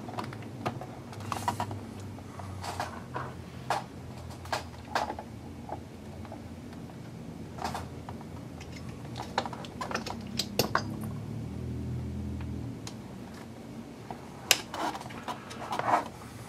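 Irregular small clicks and taps of hard plastic RC truck parts and a hex wrench being handled as a screw is worked in to hold the suspension links in place.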